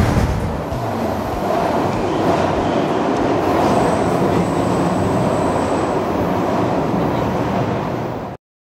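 Running noise inside a 1983 Budd rapid-transit car of Miami Metrorail moving along the track: a steady rumble of wheels on rail, with a faint high steady whine for a couple of seconds in the middle. The sound cuts off abruptly near the end.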